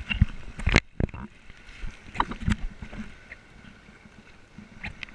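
Handling noise on a small waterproof camera: hands and a cord knocking and rubbing against it. Several sharp knocks come in the first second, then scattered fainter taps over a faint hiss, and a few more knocks near the end.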